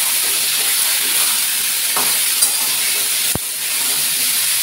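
Cubed pumpkin, soya chunks and chana dal sizzling steadily in hot oil in a stainless-steel kadai while a metal spatula stirs them. A few light clicks and one sharp knock a little over three seconds in.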